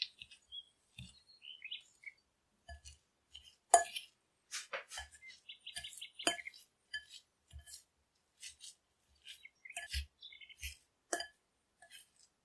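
A metal fork clinking and scraping against a glass bowl as feta and curd cheese are crumbled and mixed. The sharp clinks come irregularly, the loudest about four, six, ten and eleven seconds in.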